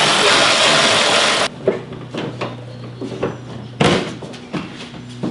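A loud, even rushing noise that stops abruptly about one and a half seconds in, then clunks and knocks of the car's steel hood being handled, with a heavier thump a little before four seconds in.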